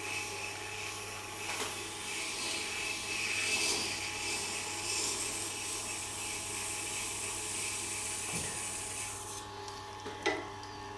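A serrated knife blade rasping steadily against the turning wheel of a Tormek sharpener as it is dragged from heel to tip, over the low hum of the machine's motor. The rasping stops about nine seconds in as the blade is lifted off the wheel, while the hum carries on.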